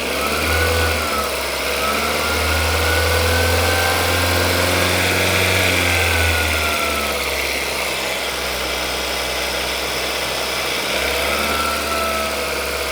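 Skoda Rapid's 1.6-litre 16-valve four-cylinder petrol engine held at raised revs of about 2,500 rpm, the pitch creeping up slowly. A little past halfway the throttle is let off and it drops back toward idle, then picks up slightly again near the end.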